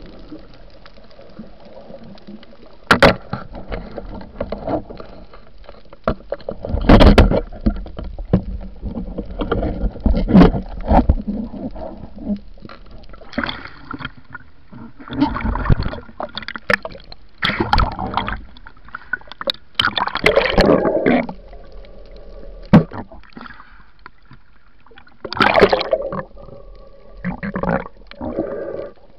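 Water sloshing and gurgling around an underwater camera housing as a diver swims, in irregular surges with a few sharp knocks.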